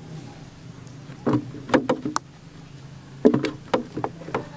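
Cucumber pieces dropped one at a time into a clear plastic jar. The result is a series of short knocks in two groups, about a second in and again about three seconds in.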